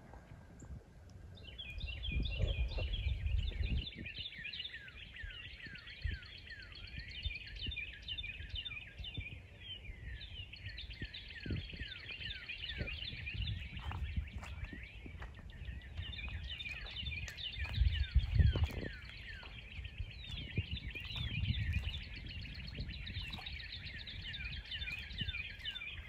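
A dense chorus of high chirping calls, many overlapping and rapidly repeated, keeps up from about a second and a half in. Gusts of wind rumble on the microphone now and then.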